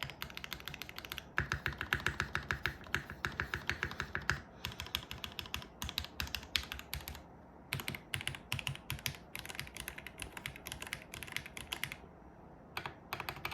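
Typing on a Mode Sonnet custom mechanical keyboard with lubed SP-Star Meteor White linear switches on a carbon plate and GMK keycaps: a fast run of keystrokes, then steadier typing broken by a couple of short pauses.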